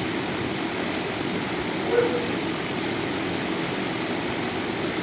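Steady ventilation noise in a dog kennel, with a dog giving one short bark about two seconds in.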